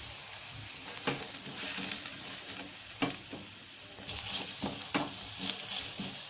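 Chopped onions sizzling in hot oil in a pan, with a spoon scraping against the pan several times as they are stirred.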